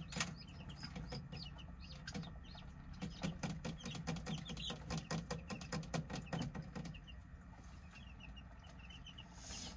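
A newly hatched chick peeping in quick runs of short, high peeps, near the start and again near the end. Under it is a dense run of small clicks and taps that stops about seven seconds in.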